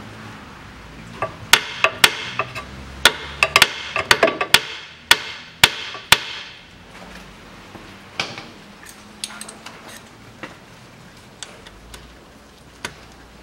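Small hammer tapping on a seized rear-differential drain plug with a nearly rounded-off hex socket, to free it: a quick run of about fifteen sharp metal strikes over the first half, then a few lighter clicks.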